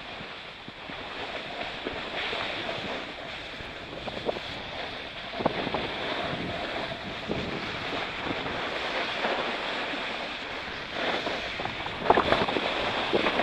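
Steady hiss of edges sliding and scraping over packed snow, with wind on the microphone. There are a few sharper scrapes, the strongest near the end.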